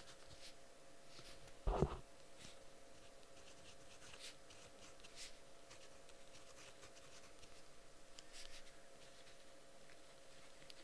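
Soft scratchy strokes of writing on paper, coming and going, with one dull low thump about two seconds in.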